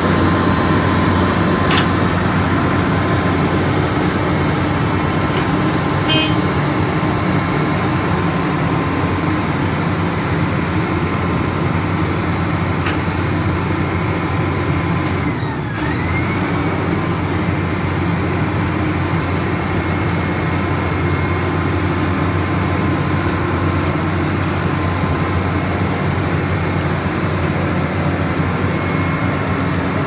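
Diesel engine of a Vögele Super 1800-2 tracked asphalt paver running steadily, heard up close, with its level dipping briefly about halfway through.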